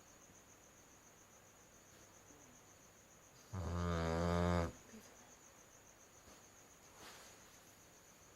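Dalmatian puppy snoring in her sleep: one loud, pitched snore with a wavering tone, about a second long, a little past the middle, and a faint softer breath near the end. A steady high-pitched pulsing trill runs underneath throughout.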